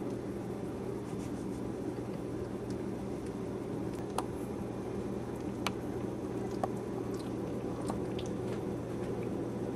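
Steady low hum with a few faint, scattered wet clicks and smacks: mouth sounds of two-week-old Maltese puppies nursing and sleeping against their mother.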